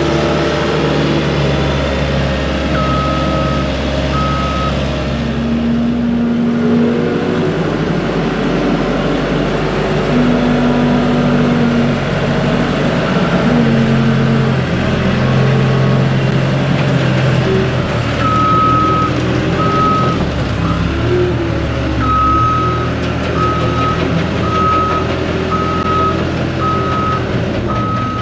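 Skid steer engine running steadily with its note shifting under load, and its reversing alarm beeping about once a second: two beeps a few seconds in, then a steady run through the last ten seconds.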